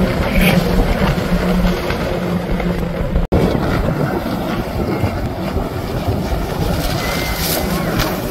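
Jet ski engines running at speed with the rush of water and spray, and wind buffeting the microphone. The sound cuts out for an instant about three seconds in.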